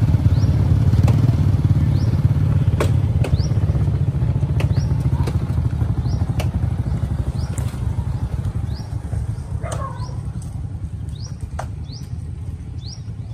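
An engine running steadily and slowly growing quieter. A short, high, rising chirp repeats about once a second over it, with scattered clicks.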